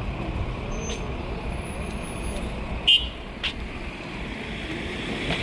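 City street ambience: steady traffic noise, with one brief sharp sound about three seconds in and a fainter one just after.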